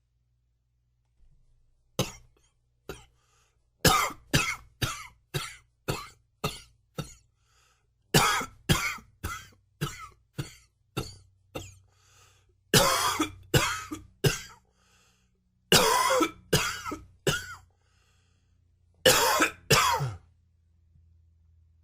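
A man's coughing fit: a couple of single coughs, then runs of quick coughs, from about two to eight in a row, with short pauses between runs.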